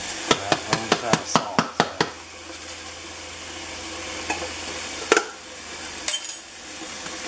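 Kitchen tap running steadily into a large enamelled cooking pot in a stainless-steel sink, filling it with water for the pasta. A quick run of sharp clicks and taps comes in the first two seconds, and a few single knocks follow later.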